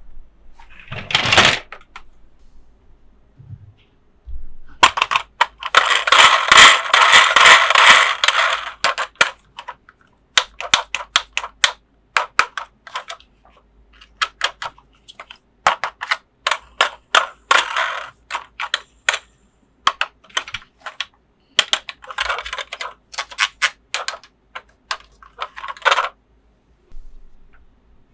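Handling of a plastic toy playset and its packaging: a few seconds of crinkling rustle, then a long run of sharp plastic clicks and taps, some in quick clusters, stopping a couple of seconds before the end.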